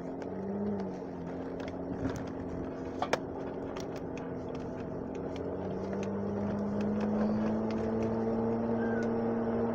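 Steady engine and road noise inside a moving car's cabin, with a low even drone and a couple of faint clicks about three seconds in.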